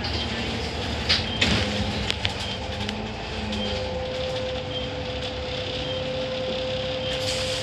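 Bus interior on the move: the engine and road noise run steadily, with a few sharp rattles and knocks from the fittings early on, and a steady whine that comes in about four seconds in.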